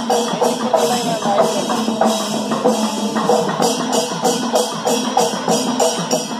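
Chenda melam: chenda drums beaten in fast, dense rolls under metal cymbals clashing in a steady beat, about three clashes a second.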